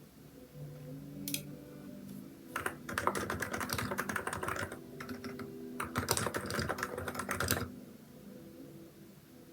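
Typing on a Hansung electrostatic capacitive (Topre-style) keyboard with XDA keycaps. A single keystroke comes about a second in, then two quick runs of typing of about two seconds each with a short pause between them.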